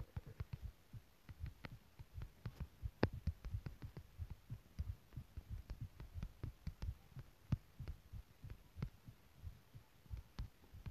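Fingertips tapping a smartphone touchscreen while typing on the on-screen keyboard, picked up by the phone's own microphone as soft, irregular thumps, several a second, some with a light click.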